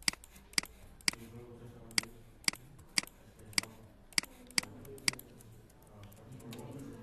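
Computer mouse clicking: sharp single clicks about every half second, with short pauses between runs, as shapes are selected and united in Illustrator.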